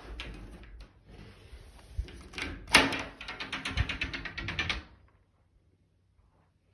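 A crawl space access door or hatch being handled: a loud knock about two and a half seconds in, followed by a quick run of clattering rattles lasting about two seconds.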